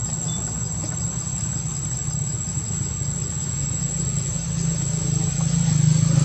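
Steady low engine hum, like a motor vehicle running nearby, growing louder near the end, over a constant high-pitched insect drone.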